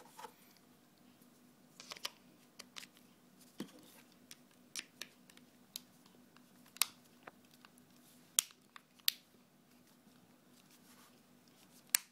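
Scattered sharp plastic clicks and snaps as the HTC HD7's back cover is fitted and pressed back into place, the loudest snaps coming in the second half.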